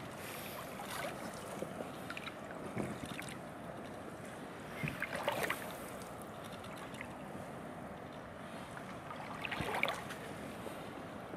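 Footsteps wading through shallow water and over wet gravel in rubber waders: a few irregular sloshes and crunches, the loudest about halfway through and again near the end, over a steady background hiss.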